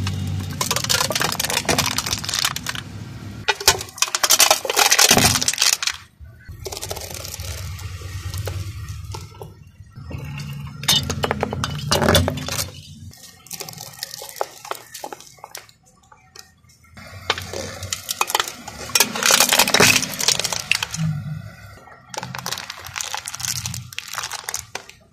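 Car tyre rolling over and crushing objects on concrete: a metal drink can crumpling and plastic things cracking and snapping, in several separate bursts of crunching and crackling with short pauses between them.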